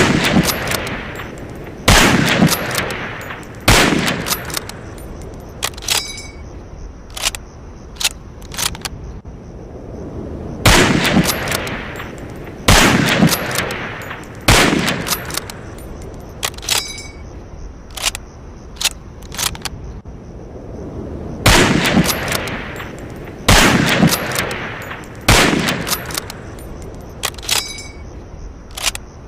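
Lee-Enfield No.4 Mk I .303 bolt-action rifle fired in three groups of three shots, about two seconds apart, each shot with a long echoing tail. Each group is followed by a few sharp metallic clicks of the rifle's action being worked.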